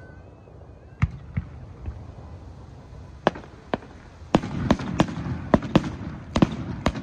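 Fireworks bursting: a series of sharp bangs, two about a second in, then more and more of them coming faster from about three seconds on, with a low rolling echo filling the gaps between the later bangs.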